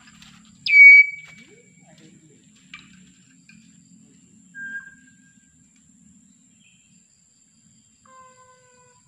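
Javan myna calls: a loud whistle about a second in that drops sharply in pitch and is then held for about a second, followed by a short whistled note a few seconds later and a quieter, lower held whistle near the end.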